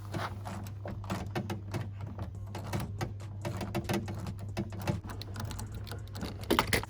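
Irregular quick clicks and taps of a screwdriver with a T20 bit working a screw out of plastic car door trim, over a steady low hum.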